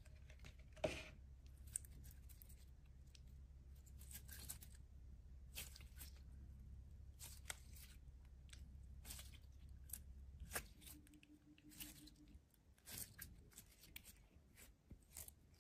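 Slime being squeezed and pulled by hand: faint, scattered wet crackles and pops, over a low hum that stops about ten and a half seconds in.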